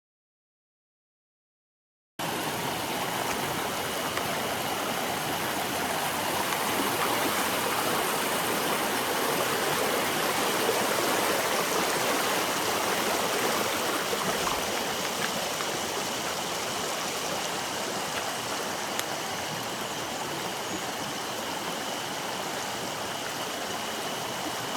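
A mountain stream's water rushing steadily over rocks; it cuts in suddenly after about two seconds of silence.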